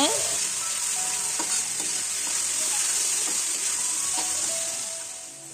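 Chopped vegetables sizzling in hot oil in a steel wok while a flat steel spatula stirs and scrapes them around the pan; the sizzle fades near the end.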